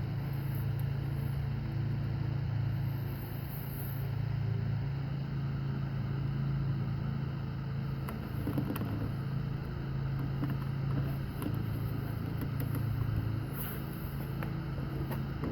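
Steady low mechanical hum, like a motor running, with a few faint taps about eight seconds in.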